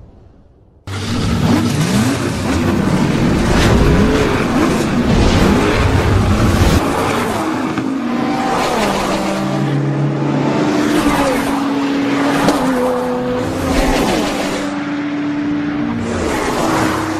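Race car engine sound effects that start abruptly about a second in. Engines rev and pass by with rising and falling pitch, then hold steady pitches that step up and down.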